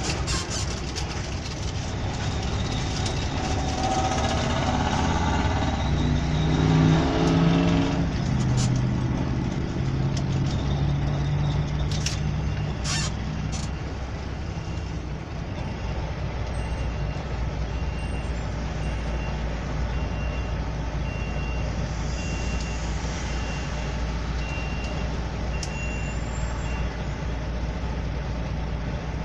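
Vehicle engine heard from inside the cab, rising in pitch through the gears in the first seconds, then easing off and settling into a low steady rumble while queued at the toll booths. A few sharp clicks come about twelve seconds in, and a faint high beep repeats evenly through the second half.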